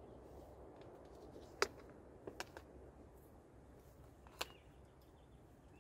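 A few sharp, short clicks over a faint, steady low background; the loudest comes about a second and a half in, a cluster follows shortly after, and one more comes near the end.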